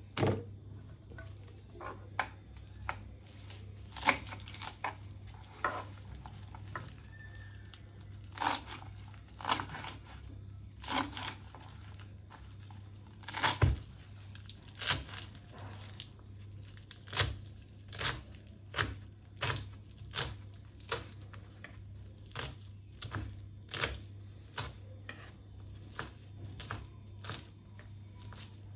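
Kitchen knife chopping fresh green herbs on a wooden cutting board: from about halfway, an even run of sharp knocks, a little more than one a second. Before that, scattered knocks and rustling as sliced onion rings are pulled apart into a plastic bowl, over a steady low hum.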